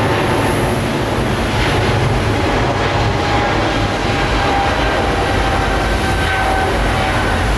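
Boeing 777-300ER's GE90 jet engines at takeoff thrust during the takeoff roll: a loud, steady rumble with a high engine whine that slowly slides lower in pitch.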